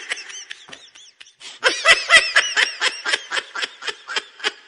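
Laughter in quick, rhythmic bursts: a fading laugh at the start, a short lull, then a louder bout of laughing from about a second and a half in that trails off near the end.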